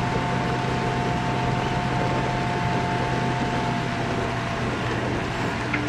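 Crane engine running steadily during the lift of a capsized boat: a constant low hum under a general mechanical noise, with a steady higher whine that stops about four seconds in.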